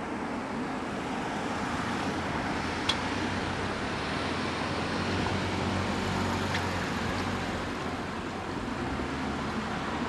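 Steady street traffic noise, with a low rumble that grows a little louder through the middle. There is one sharp click about three seconds in. The level-crossing bell is not ringing.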